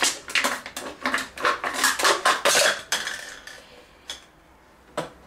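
Scissors cutting through a thin plastic water bottle, the plastic crackling and crunching for about three seconds, followed by two sharp clicks near the end.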